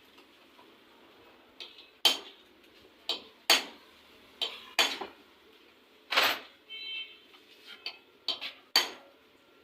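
Metal hand tools and engine parts clinking and knocking: about ten sharp, irregular knocks, with a brief metallic ring a little past the middle.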